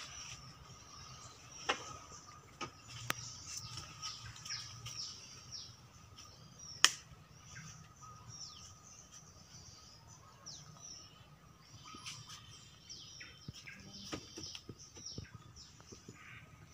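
Small birds chirping, many short quick chirps sliding downward in pitch, with a few sharp clicks, the loudest about seven seconds in.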